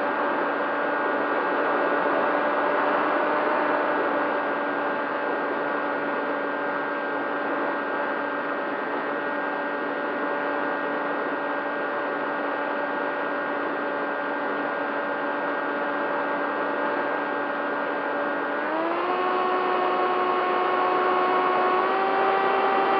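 Bixler 3 model plane's electric motor and pusher propeller whining steadily, heard from the onboard camera over airflow noise. The pitch steps up about three-quarters of the way through as the throttle opens, and rises a little more near the end.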